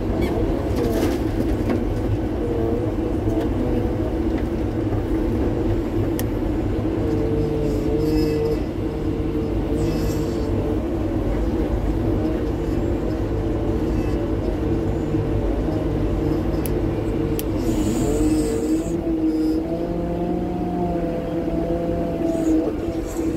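Heavy diesel engine running steadily, heard from inside the machine's cab, its pitch shifting a little now and then, with a few light clicks and knocks.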